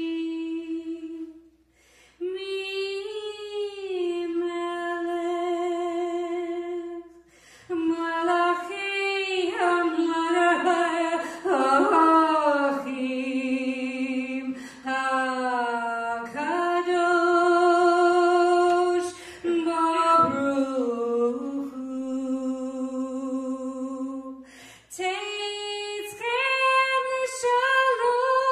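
A woman singing solo without accompaniment, long held notes with a wavering vibrato, in phrases separated by short breaths.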